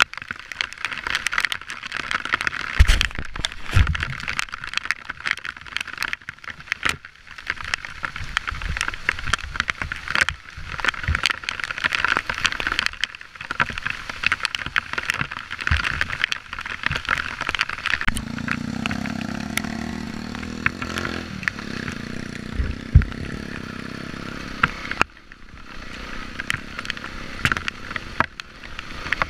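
Dirt bike engine running while the bike is ridden over a muddy, rutted trail, mixed with wind noise and crackling clicks. About two-thirds of the way in the engine holds a steady note for several seconds, then the sound drops off suddenly near the end.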